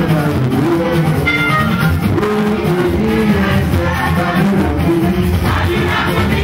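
Music with singing: a band playing over a steady bass line, with voices.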